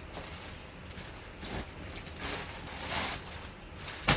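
Rustling of a fabric drawstring bag and a plastic-wrapped jersey as a hand rummages inside and pulls the jersey out, with one sharp knock about four seconds in.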